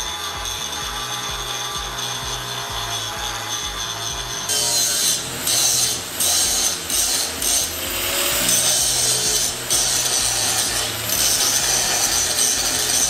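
Angle grinder grinding steel: a steady high whine with grinding noise, which grows louder from about four and a half seconds in and surges and drops as the disc is pressed onto the metal and eased off.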